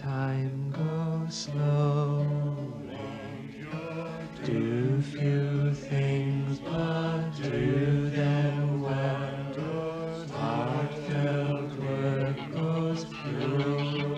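Music: voices singing a slow song, with long held notes that glide from one pitch to the next.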